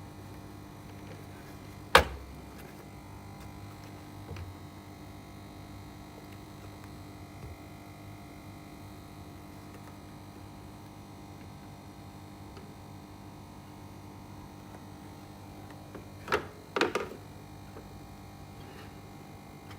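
Steady electrical mains hum from an amplified guitar-synth rig between notes. A single loud click comes about two seconds in, and a quick cluster of clicks and knocks comes near the end.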